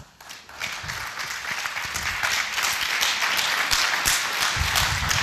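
Audience applauding, starting about half a second in and building to steady, dense clapping.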